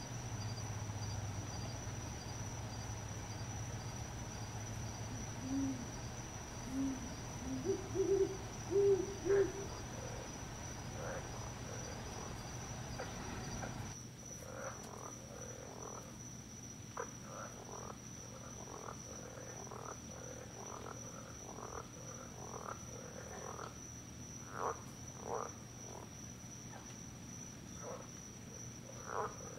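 Night chorus: frogs croaking in short, separate calls every second or so, over a steady high insect drone. A brief run of low, pitched hoot-like notes comes near the middle.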